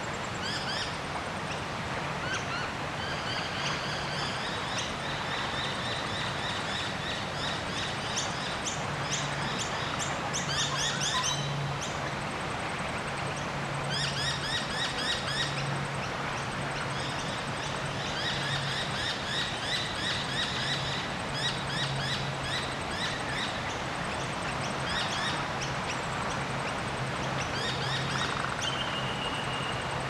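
Several wild birds chirping and calling, with quick runs of short repeated chirps over a steady background hiss; one held whistled note comes near the end.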